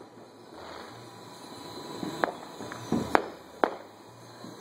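Consumer fireworks and firecrackers going off nearby: about four sharp bangs in the second half, a little under half a second apart, the third the loudest, over a steady background.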